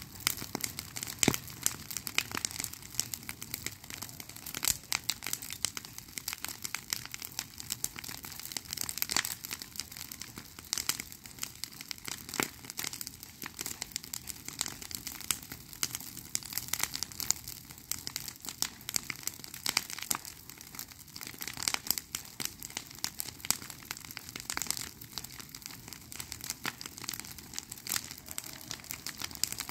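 Bonfire of dry brush and twigs crackling as it burns, with many irregular sharp snaps and pops, several a second.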